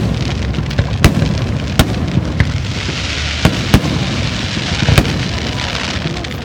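Aerial fireworks shells bursting: about six sharp bangs spread irregularly, over a steady wash of noise that grows louder in the middle.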